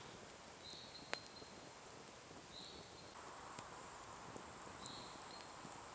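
Faint forest ambience: a bird's short high note repeating about every two seconds over a steady high hiss of insects, with one sharp pop from the wood campfire about a second in.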